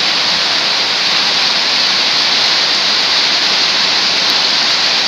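Heavy rain falling on a concrete yard and paved road, a loud, steady hiss.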